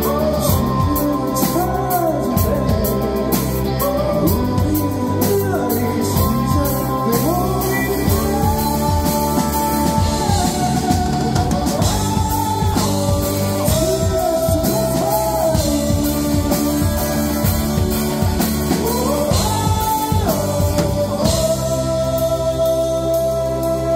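Live band music with a drum kit playing a busy beat under a sliding, song-like melody. About 21 seconds in, the drums stop and a single long held tone carries on.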